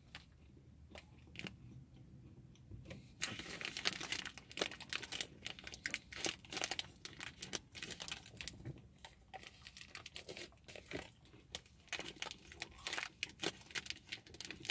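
Plastic snack-bar wrapper crinkling and crackling as the bar is handled, starting about three seconds in and going on in rapid irregular crackles.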